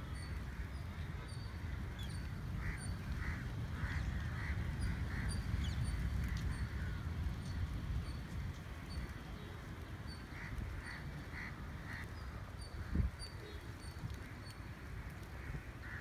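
Birds calling from a flock on a beach, in clusters of short harsh notes, one run a few seconds in and another about ten seconds in, with thin high chirps repeating throughout. A steady low rumble lies underneath, and a single dull thump comes near the end.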